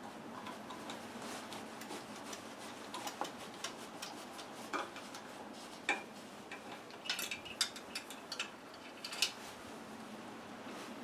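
Hand tools on small engine bolts as they are brought down evenly: faint, irregular metal clicks and clinks, likely a ratchet, with a cluster of them a little past the middle.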